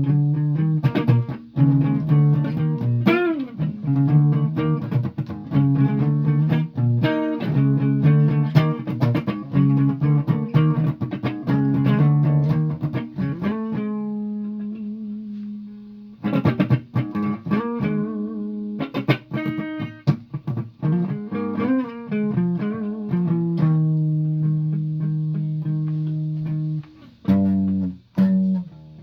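Guitar played in single plucked notes, one bent upward in pitch about three seconds in, and a long note left ringing and fading around the middle before the playing picks up again.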